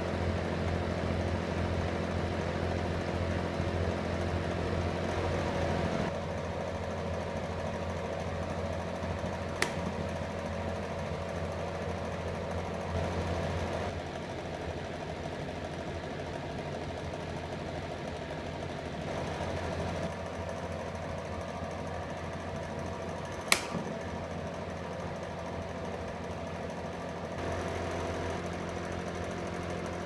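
Micromark 2kW electric fan heater running: a steady motor hum with a rush of air, its loudness stepping up and down a few times. Two sharp clicks cut through it, about ten seconds in and again later on.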